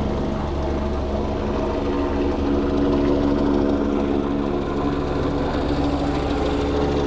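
Agusta A109 medivac helicopter lifting off and climbing overhead: a steady, rapid rotor beat under a turbine hum, growing a little louder as it rises.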